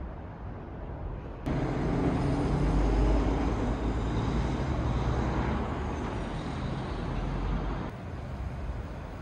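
Outdoor city ambience of road traffic: a steady low rumble of passing vehicles. It jumps louder about a second and a half in, swells, then drops back abruptly near the end.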